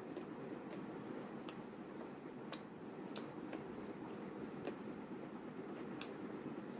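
Eating sounds: about six light, sharp clicks at uneven intervals, over a steady low background hum.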